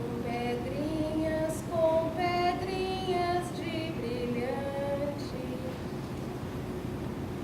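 A woman singing a short wordless-sounding melodic phrase without accompaniment, the voice stopping about three quarters of the way through, over a steady low hum.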